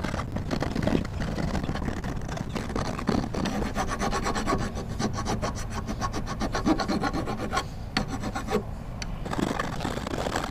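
Hand file rasping back and forth over the cut edge of a half-inch aluminum plate in quick repeated strokes, rounding off a sharp corner. There is a short pause about eight and a half seconds in.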